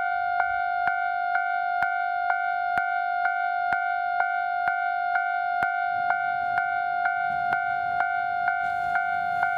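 Japanese level-crossing warning bell ringing, a steady electronic tone with a strike about twice a second. From about six seconds in, a low rumble builds underneath as the KiHa 150 diesel railcar approaches.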